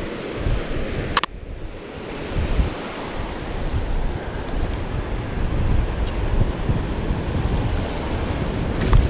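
Waves breaking on a beach, with wind buffeting the microphone in gusts. There is a sharp click about a second in and a fainter one near the end.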